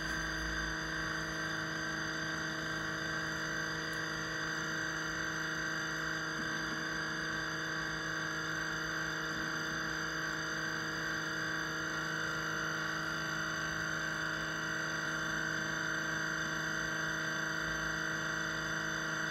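Mainstays single-serve coffee maker running a water-only brew cycle, pushing hot water through the empty ground-coffee filter into the mug: a steady, noisy buzzing hum that keeps up without a break.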